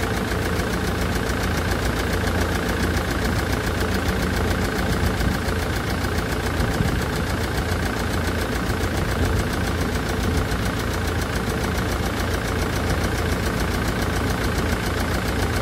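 Land Rover Defender's Puma 2.4 TDCi four-cylinder diesel idling steadily on its first run after a rebuild. It has a ticking from hydraulic tappets not yet full of oil.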